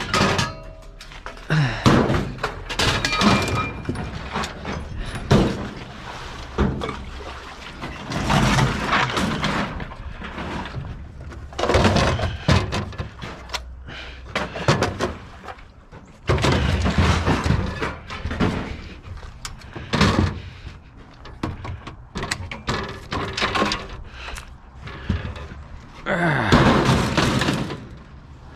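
Scrap metal being thrown off a truck onto a pile: about a dozen separate crashes and clatters of metal striking metal, some short and some rattling on for a second or two.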